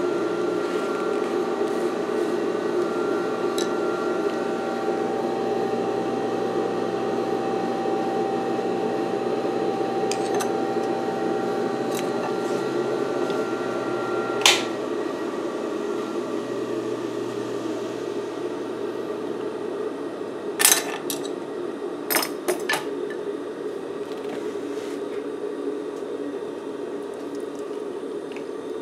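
Singer 241-12 industrial sewing machine's motor humming steadily while not stitching, with a faint whine that stops about halfway through. A sharp click comes about halfway, and a short cluster of clicks and knocks about two-thirds of the way in.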